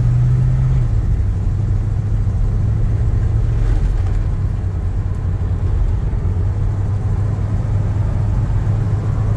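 Ford 302 (5.0-litre) V8 of a 1966 Ford F100 pickup running as the truck drives along, heard from inside the cab together with road noise: a steady low rumble.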